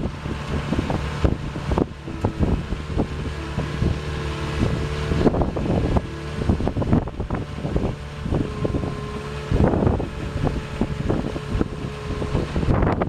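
Cat skid steer's diesel engine running steadily under work, with repeated clanks and knocks from the machine and its bucket.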